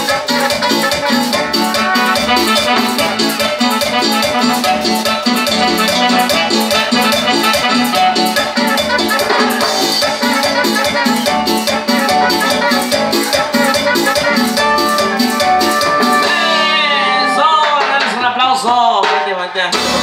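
Live cumbia band playing, with saxophones and a steady shaken-percussion beat. Near the end the song stops, and a few sliding tones follow.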